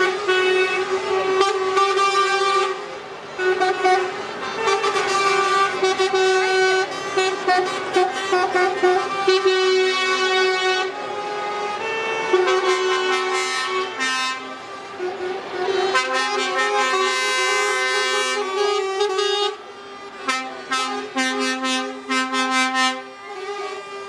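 Lorry air horns sounding almost continuously from a passing truck convoy. Several horns of different pitches overlap in long blasts and quick repeated toots, with a few short gaps.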